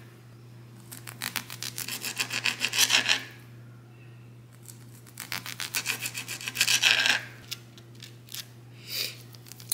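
Kitchen knife sawing through sausage and onto a plastic cutting board, in two runs of quick rasping strokes, with a steady low hum underneath.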